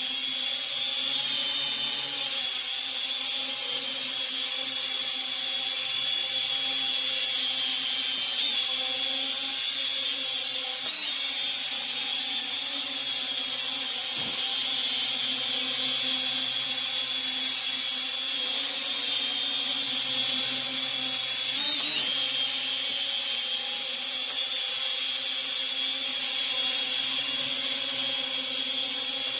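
Small toy quadcopter drone's motors and propellers whirring in flight: a steady high-pitched whine with a few brief wobbles in pitch.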